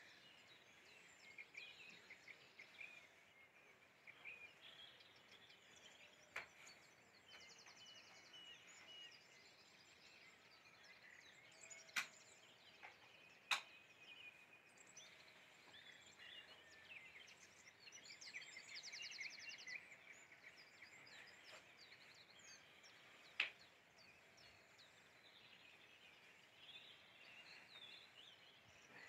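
Faint outdoor ambience with small birds chirping and calling in the distance, including a few quick trills. A few sharp clicks stand out above it, two of them close together about halfway through.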